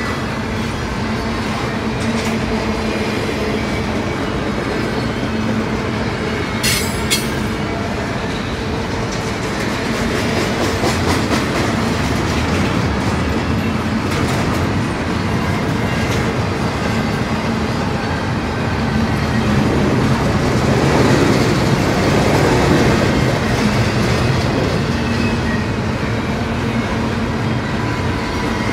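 Freight train of double-stack intermodal well cars rolling past at a steady speed: a continuous rumble of steel wheels on rail with rattling and clickety-clack, swelling a little in the last third. Two brief sharp clicks stand out about seven seconds in.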